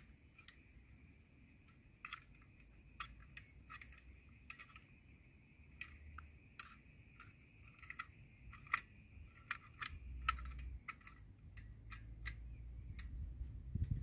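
Light, irregular metallic clicks and taps from a compact folding camping gas stove being handled, its small metal parts knocking and snapping as it is turned over in the hands. A faint steady high hum runs underneath.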